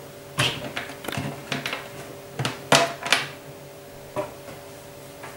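Power and network cables being unplugged from the back panel of a Buffalo LinkStation Duo NAS: a series of sharp plastic clicks and knocks from the plugs and the case, over a faint steady hum.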